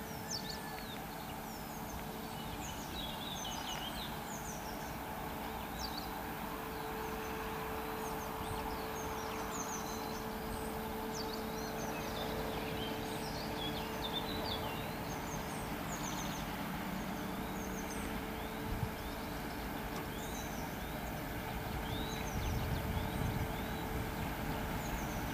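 Distant 2M62M twin-section diesel locomotive hauling a freight train of tank wagons, a steady low engine drone and rumble that grows heavier near the end as it draws closer. Small birds chirp repeatedly over it.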